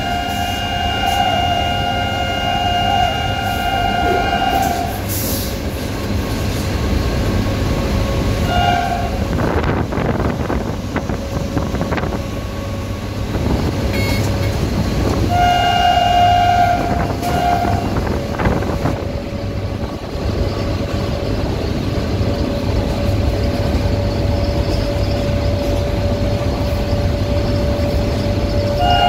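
Electric locomotive's horn heard from inside the cab: a long blast, a short toot about 9 s in, another blast about 16 s in that breaks into two parts, and a fresh blast starting at the very end. Underneath runs the steady rumble of the locomotive running along the track, with a faint steady whine.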